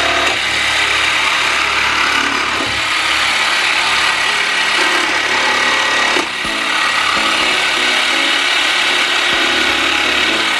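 Electric jigsaw running steadily as it cuts through an IKEA RUNNEN wooden deck tile, with a brief dip in the noise about six seconds in.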